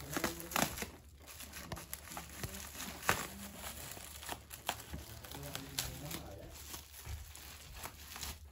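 Plastic bubble wrap crinkling and rustling as it is handled and cut open with scissors, with sharp crackling clicks now and then.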